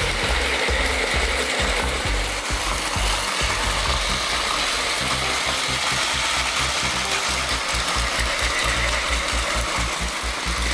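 Plarail Advance battery-powered toy trains running on plastic track: a steady whirring rattle from their small motors, gears and wheels.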